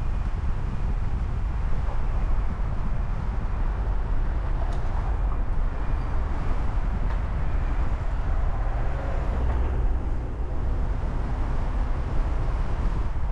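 Steady low rumble of a car on the move: road and engine noise with no breaks.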